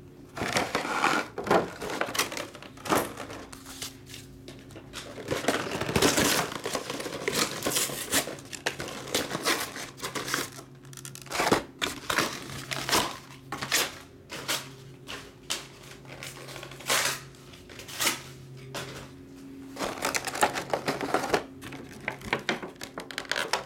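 Plastic wrap, cardboard and card packaging crinkling and rustling in the hands, with irregular handling crackles and taps, as Pokémon trading-card boxes are unpacked.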